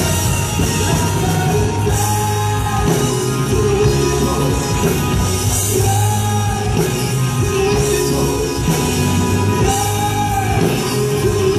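Live rock band playing loud amplified music, electric bass and guitars, with a voice singing over it.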